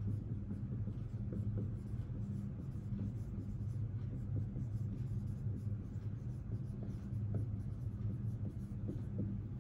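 Dry-erase marker writing on a whiteboard: a run of short, faint strokes over a steady low hum.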